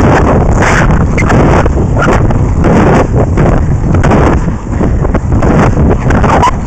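Wind rushing and buffeting over the microphone of a camera carried by a moving inline skater, over the rolling rumble of skate wheels on track asphalt. The noise is loud, steady and uneven, with brief dips and flutters.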